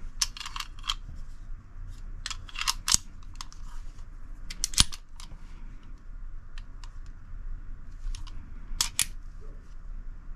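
Kimber semi-automatic pistol being handled, its slide and action giving sharp metallic clicks in a few short clusters. The loudest is a single snap almost five seconds in.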